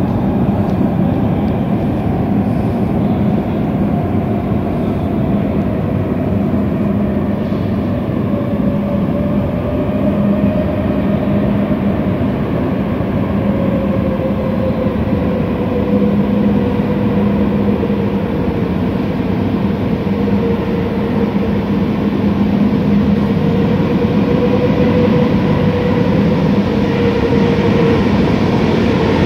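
Metro train approaching through the tunnel and pulling into an underground station: a continuous rumble of wheels on rail with an electric motor whine that slowly falls in pitch as the train slows.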